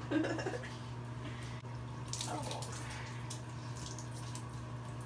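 Water poured from a plastic container over a wet dog in a bathtub, trickling and splashing down into the tub, with a low steady hum underneath.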